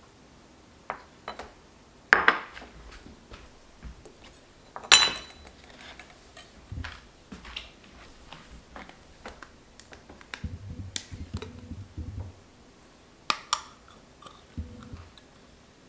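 Kitchen handling sounds: a metal spoon and ceramic bowls clinking, scraping and knocking on a stone counter. The sharpest clinks come about two and five seconds in, the second ringing briefly, and near the end comes a pair of clinks as a tin can meets the bowl.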